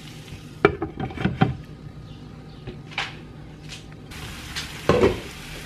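Glass lid being set onto a skillet, giving a few sharp clinks and knocks, strongest about a second in, with a louder knock near the end.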